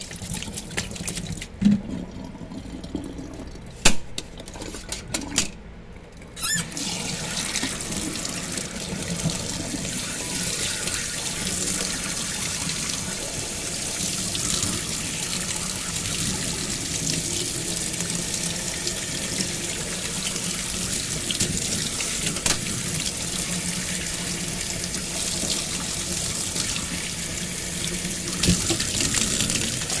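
A few sharp knocks in a stainless steel sink, then about six seconds in the tap comes on and runs steadily, its stream splashing onto an air-conditioner filter lying in the sink.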